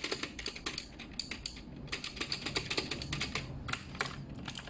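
Keys of a K2 Pro mechanical keyboard with clicky blue switches being pressed one after another, a quick, irregular run of sharp clicks as each key is tried for feel.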